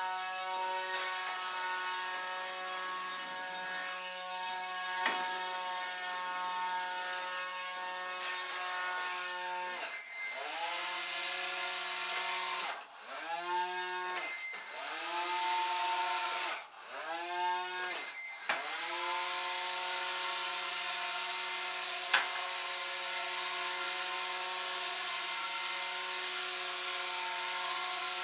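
Small brushed electric motor spinning the air propeller of an RC air boat, a steady buzzing whine. From about ten seconds in, the pitch drops and climbs again several times as the throttle is worked, and twice stops for a moment before running steady again.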